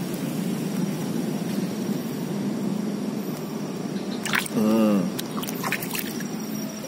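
A hand plunging into shallow drain water to snatch a small fish: a sudden splash about four seconds in, followed by a few drips and small splashes.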